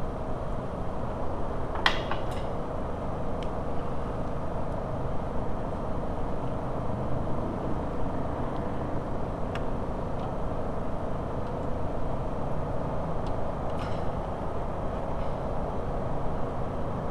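Steady low background rumble with a few scattered light clicks, the clearest about two seconds in.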